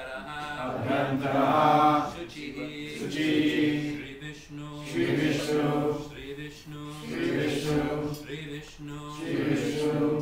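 Men's voices chanting a Sanskrit mantra in long, held notes, phrase after phrase about every two seconds, breaking off abruptly at the end.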